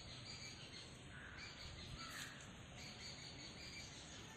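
Faint outdoor ambience: a steady hum of insects with a few brief bird chirps.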